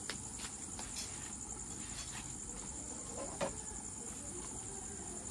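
Steady high-pitched chirring of night insects such as crickets, with a few faint clicks.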